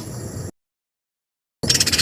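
Songbird masteran recording edited from clips: the tail of a short, high chirping phrase cuts to dead silence. Near the end a fast, high trill of rapid repeated notes starts.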